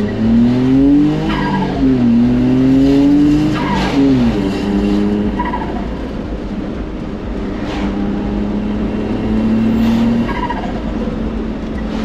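Turbocharged three-cylinder kei truck engine pulling under throttle, its pitch climbing and dropping back several times. A falling whistle sounds each time the revs drop, four times in all.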